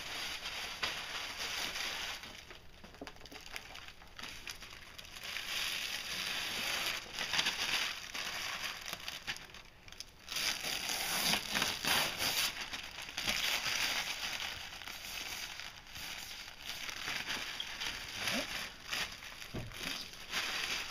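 Thin protective plastic film being peeled off a clear plastic windshield and crumpled in the hand, crinkling and rustling in bursts with short lulls.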